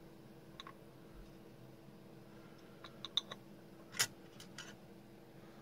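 A few faint small clicks and taps as the cap is put back on a small glass glue bottle and hobby tools are handled on the workbench. There is a little cluster of clicks around three seconds in and one sharper tap about a second later. A faint steady hum lies underneath.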